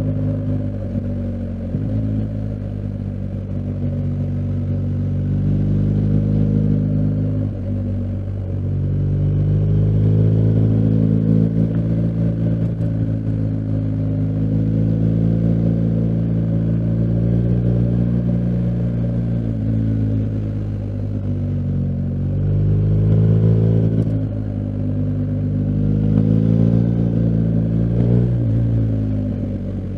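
BMW R1250GS Adventure's boxer-twin engine under way, its note rising with the throttle and falling away again several times, with short dips in level where the rider shifts gear or rolls off for a bend.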